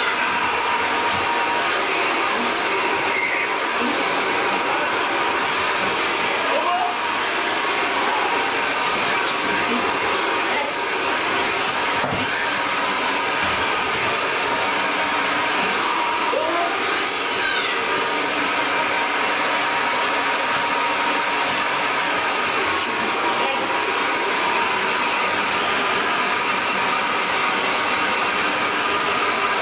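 Hand-held hair dryer running steadily, a rush of air with a steady motor whine, blowing through a curly-coated dog's fur.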